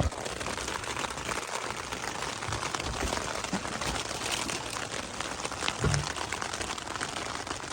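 Rain falling on a tent, heard from inside: a steady patter of many drops on the fabric. A single sharp knock right at the start.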